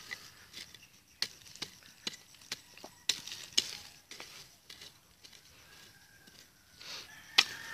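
Footsteps crunching on dry leaf litter and twigs on bare soil, as irregular sharp crackles about every half second, loudest about three seconds in and again near the end.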